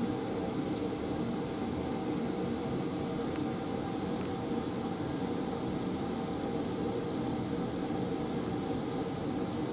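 Steady rushing hum of a laboratory fume hood's exhaust airflow.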